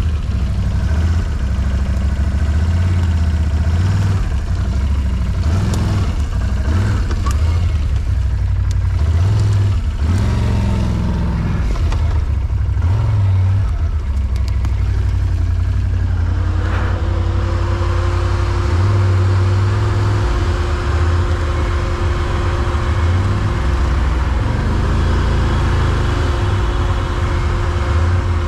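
Quad bike (ATV) engine running as it rides a forest trail, with a heavy, uneven low rumble. A little past halfway a steady whine sets in and holds.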